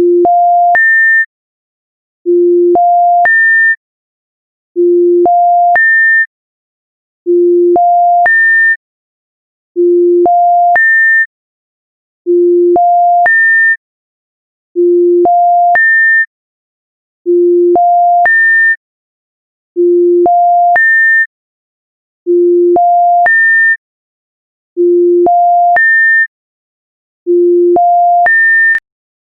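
Electronic error tone: three pure beeps stepping up in pitch, low, middle, then high. The sequence repeats about every two and a half seconds, twelve times, with silence between.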